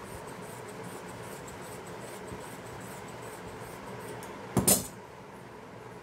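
Fabric scissors snipping through cotton cloth, faint small cuts in quick succession, with a brief, louder clack about four and a half seconds in.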